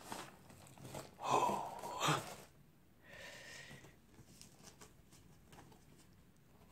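A loud, breathy, gasp-like exhalation about a second in, then a softer one about three seconds in. Faint handling ticks from a zippered fabric case being opened and touched follow.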